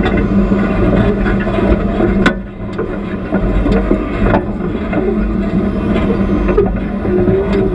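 Off-road vehicle engine running at low speed while crawling over a rocky trail, with a few sharp knocks as the vehicle works over the rocks, the loudest about two seconds in.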